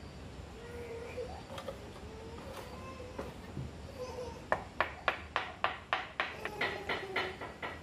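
A ceramic tile being tapped down into wet mortar with a wooden-handled hand tool: a quick, even run of about a dozen sharp taps, about four a second, starting a little past the middle.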